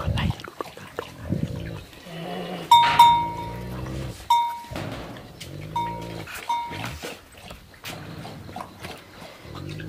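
Tibetan mastiff growling in repeated low rumbles, each lasting about a second.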